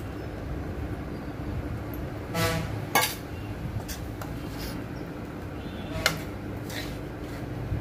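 Metal spoon scraping and clinking against a metal kadai as cooked rice is tipped in and stirred through, with a few sharp clinks and one short ringing clang about two and a half seconds in, over a steady low hum.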